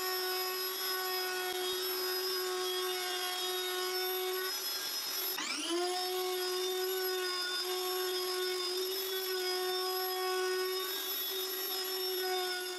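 Table-mounted router spinning a bearing-guided round-over bit, a steady high whine, as the corners of a wooden armrest are rounded over. About five seconds in the whine drops sharply and climbs back to pitch within about half a second.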